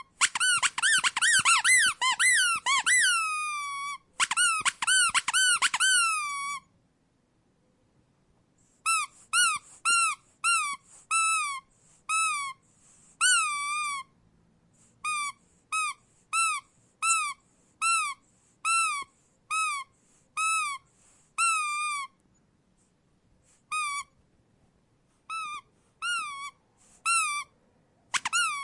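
Rubber squeak toy squeezed over and over, each squeak sliding up then down in pitch. The squeezes come fast and overlapping for the first few seconds, then after a pause of about two seconds they settle into separate squeaks, roughly one or two a second.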